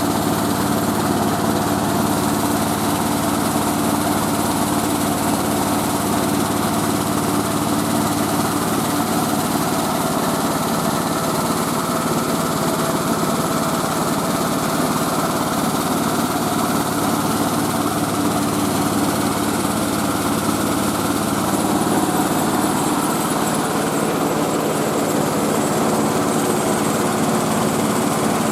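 Engine-driven mobile rice mill running steadily, a constant mechanical engine noise with a steady hum; the low part of the note shifts slightly about three-quarters of the way through.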